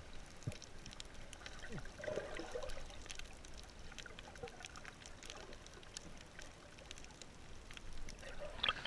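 Underwater sound picked up through a waterproof camera housing: a faint, muffled hiss with many small scattered clicks and crackles, and a short gurgle of bubbles about two seconds in. The water noise grows louder near the end as the swimmer comes up close.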